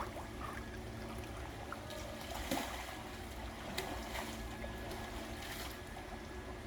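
Mountain stream water running steadily over rocks, with a few brief sharp sounds in the middle.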